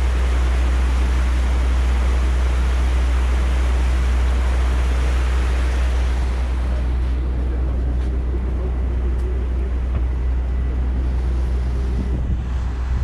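A harbour ferry's engine running with a low, steady drone, under wind on the microphone and water rushing past the hull. The wind hiss drops off about halfway through.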